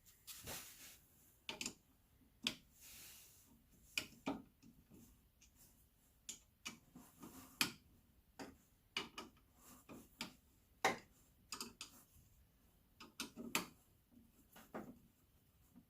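Irregular clicks and light metallic taps, about one or two a second with short clusters, from hand tools and bolts being worked on car suspension hardware.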